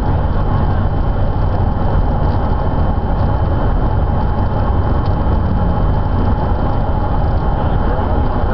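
Steady road noise inside a car cabin at highway speed: a loud, even low rumble of tyres, wind and engine, with a faint steady high tone.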